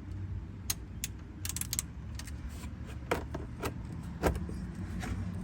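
Scattered metallic clicks and clinks of a 15 mm wrench working at a car's oil drain plug, which is stuck tight and will not break loose, over a low steady hum.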